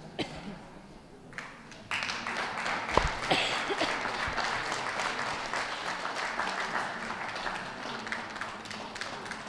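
Audience applauding, breaking out about two seconds in and carrying on as a steady clatter of many hands clapping.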